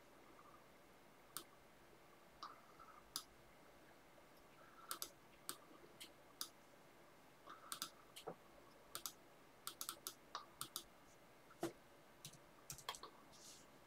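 Faint, irregular clicks of a computer mouse and keyboard, often in quick pairs or short clusters, with quiet gaps between.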